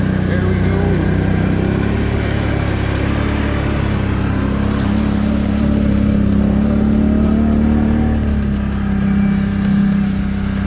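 Off-road bike engine running steadily under way, its pitch shifting a little as the throttle changes.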